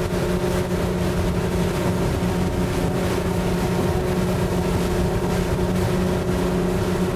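Bay boat's outboard motor running steadily at cruising speed: a constant drone with a low, even hum, mixed with rushing wind and water noise.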